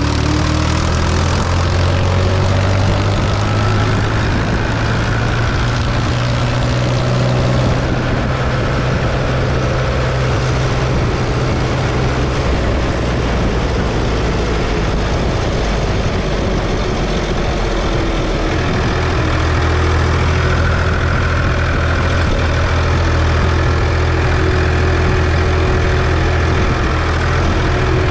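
Ford 3600 tractor's three-cylinder engine running steadily while driving on the road, a loud low drone. The engine note eases partway through and picks up again.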